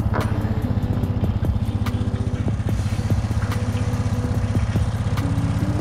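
ATV engine idling steadily, with a few light clicks and knocks over it.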